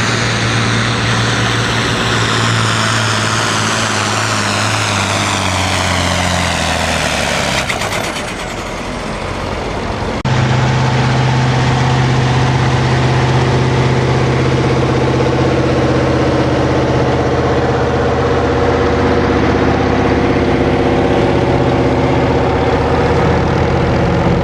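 Pulling tractor engine running hard, its pitch falling steadily as it winds down at the end of a pull. About ten seconds in, a heavy engine takes over, idling steadily.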